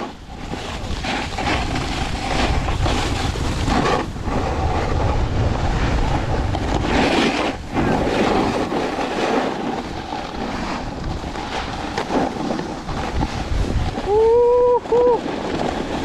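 Snowboard sliding and scraping over icy, hard-packed snow, with wind buffeting the mouth-mounted microphone. About two seconds before the end, a brief two-part vocal call rises above the noise.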